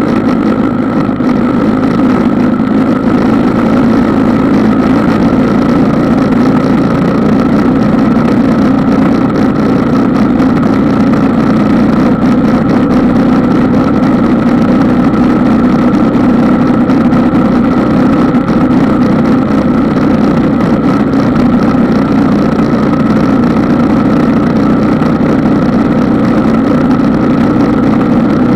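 Engine of a small ridden vehicle running steadily at an even cruising speed, heard from a camera mounted on the vehicle.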